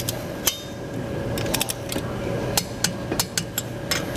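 Click-type torque wrench on a car's wheel lug nuts: a run of sharp, irregular metallic clicks as the ratchet head is worked and the wrench clicks over at its set torque of 76 foot-pounds, the signal that each nut is tight.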